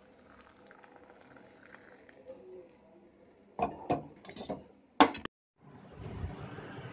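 Tea trickles faintly through a plastic strainer into a steel tumbler. Then comes a quick run of knocks and clatters as the utensils are handled on the steel stove top, and a loud sharp click that cuts off abruptly. After it a steady rushing background noise starts.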